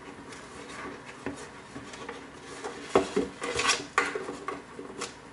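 Handling noise from a blower and its tubing being moved and set against a plywood board: rubbing and scraping with scattered sharp clicks and knocks, the strongest about three seconds in and a few more over the next two seconds.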